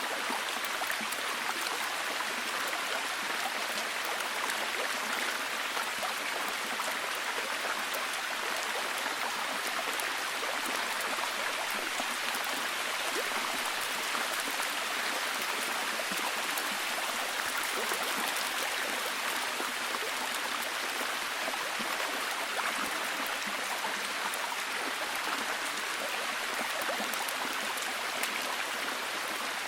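Steady, heavy rain falling, an even hiss of many fine drop ticks with no let-up.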